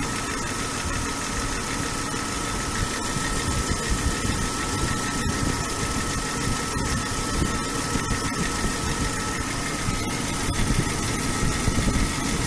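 BMW M50/M52 inline-six idling, with light knocks at irregular moments over a steady high whine. This is the knock that is common on single-VANOS M50/M52 engines.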